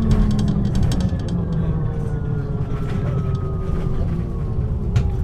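MAN NG 313 articulated bus under way, its diesel engine running with a steady low drone and a whine that falls slowly in pitch, with light rattles and a sharp click near the end.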